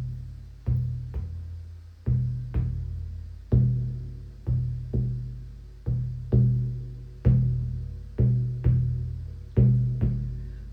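Shamanic drum beaten in a steady rhythm, about two strokes a second, each stroke ringing low and dying away.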